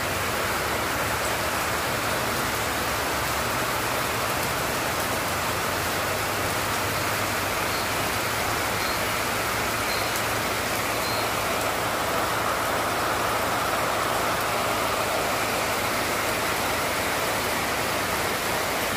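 Steady, even rushing noise with a faint low hum underneath, unchanging throughout.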